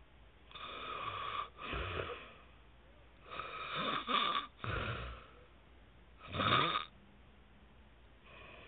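A sleeping man snoring: three loud, rasping snoring breaths a couple of seconds apart, the first two each broken by a short catch in the middle.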